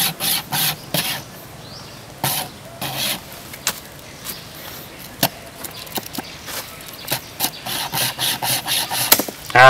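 Steel wire rope saw drawn back and forth through a tree root: a rhythmic rasping of wire on wood, about three strokes a second, in runs with short pauses between them. A brief loud burst comes right at the end.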